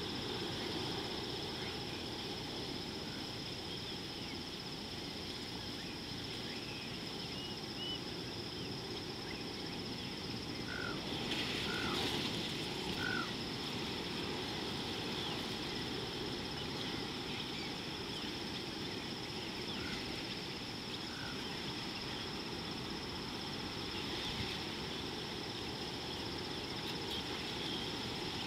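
Natural outdoor ambience: a steady high-pitched insect drone over a constant low hiss, with a few short bird chirps near the middle.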